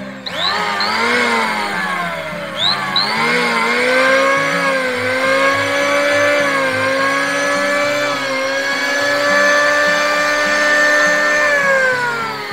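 DCK electric hand planer's brushed motor and cutter drum running free in the air with no wood, a loud whine. It is pulsed on twice in the first few seconds, each time rising in pitch, then held on at a steady pitch and slows near the end. The running sound is normal for a hand planer.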